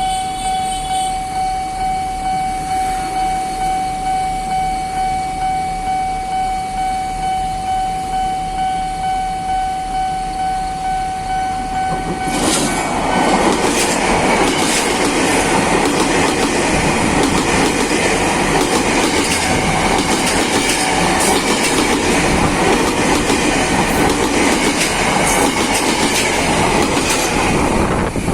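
Level-crossing warning bell ringing in a steady pulsing tone, about two strokes a second. About twelve seconds in, a commuter electric train passes over the crossing, louder than the bell, its wheels clattering over the rail joints.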